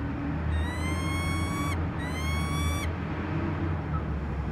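Peregrine falcon giving two long calls, each about a second long and rising slightly in pitch, over a steady low rumble.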